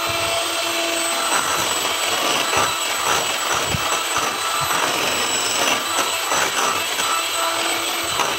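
Electric hand mixer running steadily at high speed, its beaters whisking thin, runny sponge-cake batter of eggs, sugar and flour, which is being beaten until it thickens.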